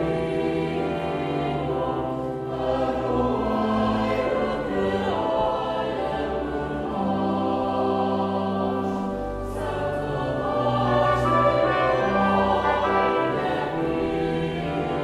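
Church choir singing a hymn in parts over sustained pipe organ accompaniment.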